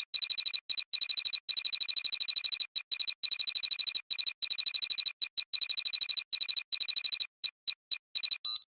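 High-pitched electronic beeping that pulses about ten times a second in bursts separated by short gaps. The gaps grow longer and the bursts shorter near the end.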